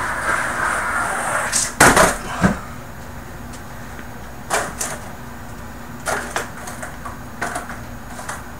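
Skateboard wheels rolling across a carpeted floor, then several loud clacks of the board hitting the floor about two seconds in. Lighter scattered knocks and taps of the board follow.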